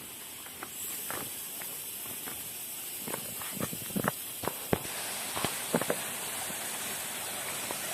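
Footsteps scuffing and knocking irregularly on a steep, rough trail during a descent, thickest midway through, over a steady high hiss.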